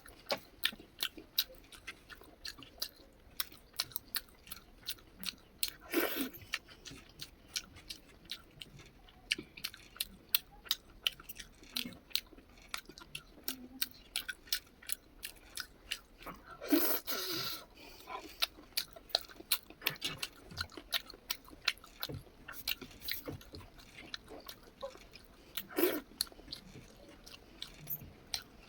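Close-up chewing of spicy chicken liver and rice, with a steady run of wet mouth clicks and smacks. A few louder, longer mouth noises come about a sixth, a half and nine-tenths of the way through.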